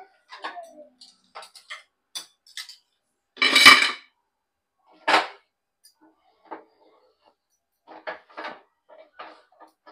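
Dishes and utensils being handled and set down: scattered light clinks and knocks, with a loud clatter about three and a half seconds in and another sharp one just after five seconds.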